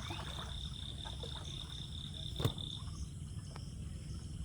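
Frogs calling: a steady, fast-pulsing high trill that stops a little before three seconds in, with one sharp click about two and a half seconds in.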